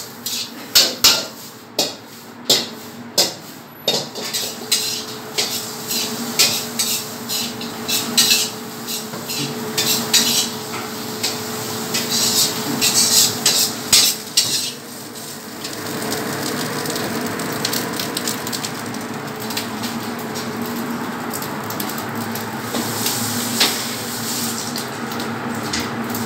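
Chicken strips being mixed and tossed by hand in a stainless-steel bowl, with repeated clinks and scrapes against the metal. About fifteen seconds in the clinking stops and a steady background hum takes over.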